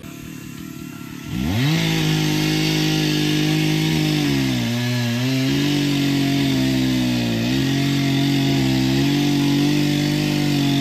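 Chainsaw revs up a little over a second in and runs at high speed cutting a fallen birch log, its pitch dipping briefly twice as the chain works through the wood.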